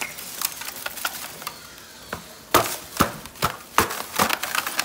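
Ice cubes clattering as a plastic ice bin is tipped and knocked over a plastic bag to empty it, with a run of sharp knocks in the second half.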